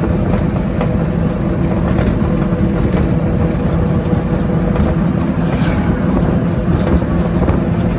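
An engine running steadily at an even speed, with a constant low hum and rumble.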